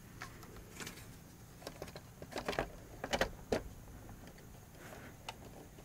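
Handling noise from a hard plastic radio-cassette case being fitted back together and pressed by hand: a scatter of faint clicks and knocks, the loudest cluster a little past the middle.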